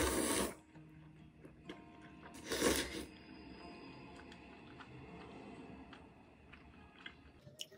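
A person slurping cold buckwheat soba noodles. There is a loud slurp at the start and another about two and a half seconds in.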